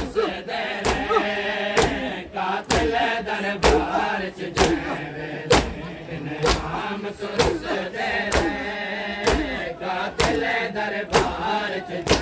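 A crowd of men beating their chests in unison (matam), one sharp slap together about once a second, while men chant a noha lament over it.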